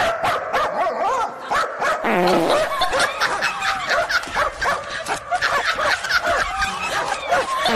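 A dog barking and yipping in rapid, repeated short calls.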